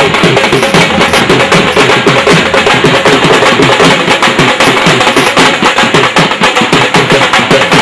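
Dhol, a rope-tensioned Indian barrel drum, beaten in a fast, steady rhythm.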